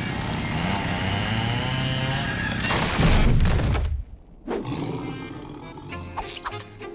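Cartoon soundtrack of music and sound effects. A loud rushing burst comes about three seconds in and cuts off sharply, and softer music follows.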